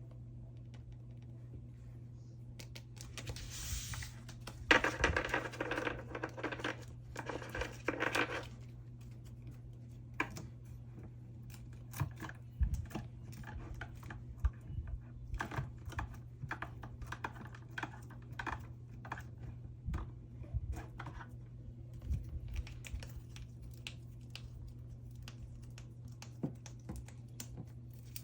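Plastic photocard sleeves rustling and crinkling as cards are slid out, followed by many scattered light clicks and taps of cards and sleeves being handled, over a steady low hum.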